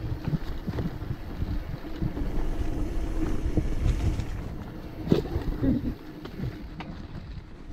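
Off-road motorcycle engine running, with wind noise on the microphone and a sharp knock about five seconds in.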